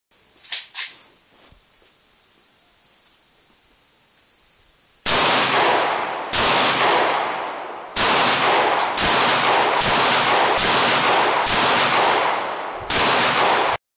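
Smith & Wesson Model 39 9mm semi-automatic pistol fired in a string of about nine shots, roughly one a second, each fading out slowly. Two sharp clicks come about half a second in, before the shooting starts; the last shot is cut off abruptly.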